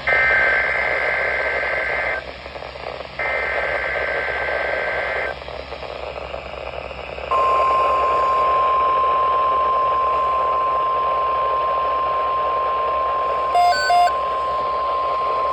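NOAA Weather Radio Emergency Alert System signal over radio hiss. It opens with two roughly two-second bursts of SAME header data tones, a harsh warbling screech, then after a pause the steady, high-pitched 1050 Hz warning alarm tone sounds for about nine seconds. Two short beeps briefly cut in over the tone near the end.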